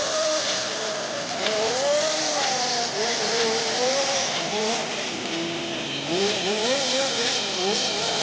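Small two-stroke nitro engine (Kyosho GX-15) of an RC snowcat running, its pitch rising and falling again and again as the throttle is worked, with quicker swings near the end.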